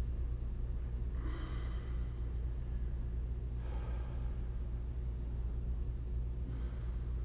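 A person breathing out hard three times, about every two and a half seconds, with the strain of holding a long plank, over a steady low hum.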